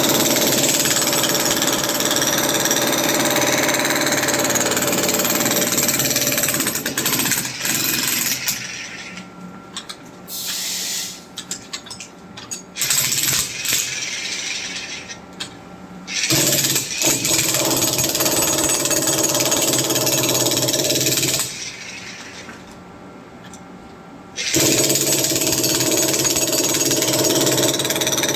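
Hand-held power breaker (demolition hammer) chiselling into a concrete floor. It runs continuously for the first several seconds, then goes in short bursts with pauses, runs steadily again, stops for about three seconds, and starts hammering again near the end.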